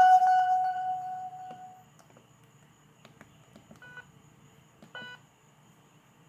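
The last notes of a ZTE Z222 mobile phone ringtone fade out over about the first two seconds, followed by two short keypad beeps from the phone about a second apart, with faint key clicks.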